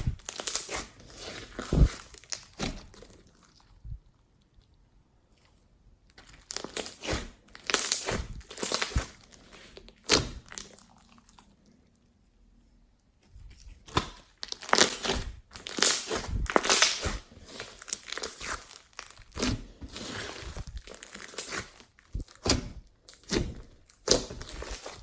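Slime being squeezed and mixed by hand, making irregular bursts of crackling and crunching squishes, with two short pauses.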